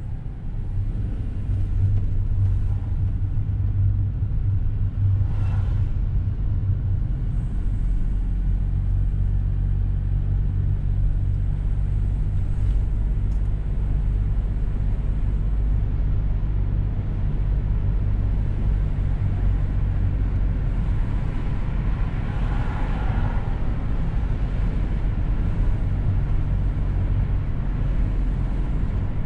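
Car running along a road, heard from inside the cabin: steady engine hum and tyre and road rumble, getting louder about a second in and then holding even.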